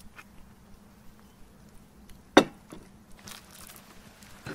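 Raw tomahawk steak handled on a wooden cutting board: one sharp knock about two and a half seconds in, with faint clicks around it.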